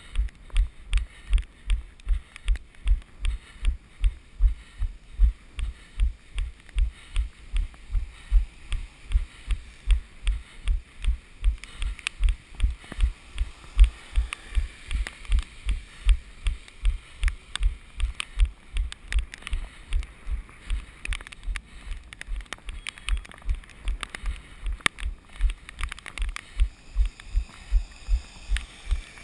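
A runner's footfalls: an even rhythm of low thuds, about three a second, picked up by a camera carried on the runner's body.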